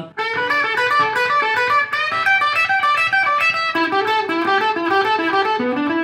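Ibanez electric guitar playing a fast run of single notes, the same short pattern cycling over and over. About two-thirds of the way through, lower notes come in. It is an example of a solo that keeps repeating the same move.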